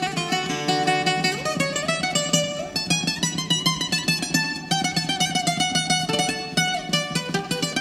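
Instrumental Greek syrtaki music: a bouzouki plays a quick melody of plucked notes over a steady plucked-string accompaniment.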